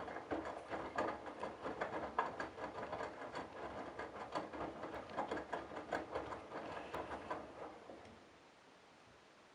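Candy Bianca washing machine drum tumbling a sudsy load of towels in the wash, a dense, irregular patter of clicks and splashes. The drum stops about eight seconds in.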